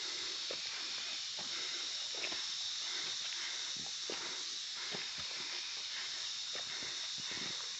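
Irregular footsteps on a forest hiking trail, with a steady high-pitched hiss behind them.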